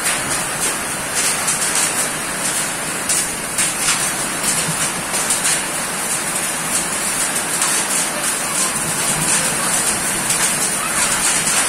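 Heavy rain pouring onto muddy ground and puddles of standing water: a steady loud hiss with many short sharp ticks of drops striking close by.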